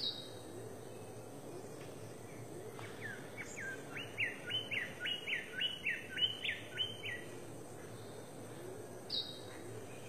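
A songbird singing a fast run of about a dozen repeated sharp notes, about three a second, lasting some four seconds. A single short, high call comes at the start and again near the end.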